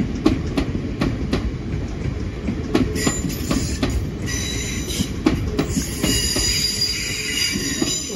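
Two coupled Class 350 Desiro electric multiple units pulling out over pointwork: wheels rumbling and clicking at a steady rate over rail joints and points. From about three seconds in, a high-pitched wheel squeal comes and goes, loudest near the end.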